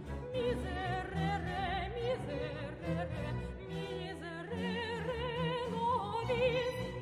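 Background music in a classical, operatic style: a melody line with strong vibrato over sustained orchestral accompaniment.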